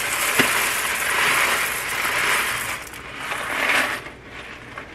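Dry mini pasta shells pouring out of a plastic bag into a pot, a steady rattling stream that thins out about three seconds in, with a short second pour near four seconds.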